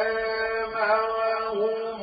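A male Qur'an reciter chanting melodically, holding a long, slightly wavering note as he draws out the word 'wa anzalnā'.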